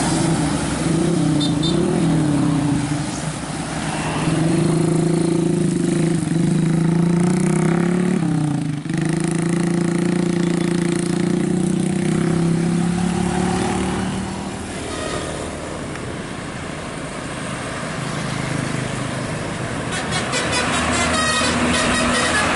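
A passing intercity bus gives a loud, steady pitched drone. It wavers in the first seconds, breaks briefly about nine seconds in and fades out after about fourteen seconds into quieter road noise.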